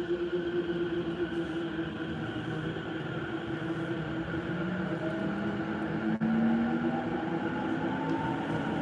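Electric commuter train running, heard from inside the passenger car: a steady rumble with a whine held at one pitch, and a higher whine rising slowly in the second half.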